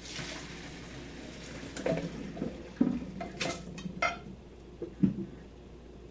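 Boiling water and noodles pouring from a saucepan into a colander in a stainless-steel sink, a rushing splash for the first couple of seconds. Then several sharp knocks and clatters of the pot against the colander and sink as it is shaken empty.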